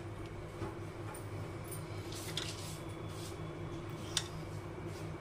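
Low steady hum with a few faint, soft clicks as garam masala powder is spooned onto chicken in a pan.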